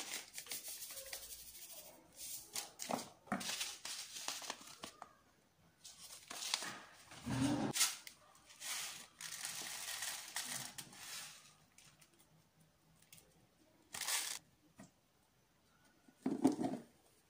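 Small paper sachets of baking ingredients, vanilla sugar among them, being torn open, crinkled and shaken out over a plastic mixing bowl, in irregular bursts of rustling. Twice there is a duller knock, the second one near the end as a spoon scrapes out a plastic container.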